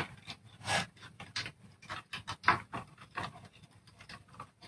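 Irregular rustling, scraping and small clicks of thin hookup wire being bent and worked into the spring terminals of a wooden-boxed electronics kit board.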